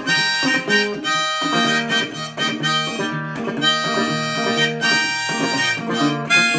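Harmonica in a neck rack played over a fingerpicked resonator guitar, whose low bass notes repeat in a steady rhythm under the held harmonica notes.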